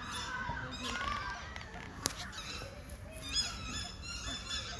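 Several waterfowl calling over one another in short pitched calls, with a single sharp click about two seconds in.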